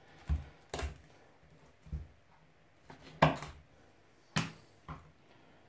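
Kitchen knife knocking against a wooden cutting board while cutting up a raw chicken: about six short, sharp knocks, the loudest a little past three seconds in.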